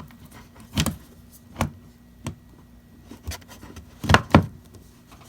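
A recessed ceiling light being pushed up into its hole in the ceiling, making a series of short knocks and taps, two louder ones close together near the end.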